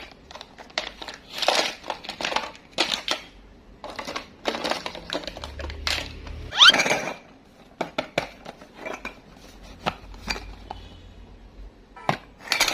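Small hard candies and toy pieces clattering and clinking in a plastic dish, a string of irregular clicks and knocks, with one short squeaky sliding tone about halfway through.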